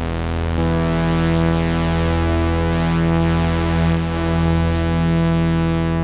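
Moog One 16-voice analog polyphonic synthesizer playing a preset sound as a long held chord. The chord is sustained and steady, swells gently in loudness, and has a slow sweep moving through its upper tones.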